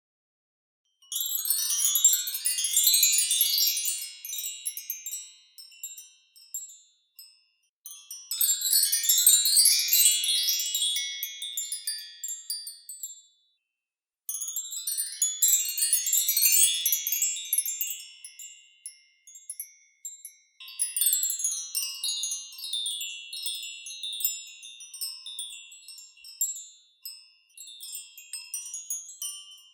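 Metal wind chimes jingling in four separate flurries, each a quick cascade of many high ringing notes that rises at once and then rings away over several seconds, with short silences between the first three.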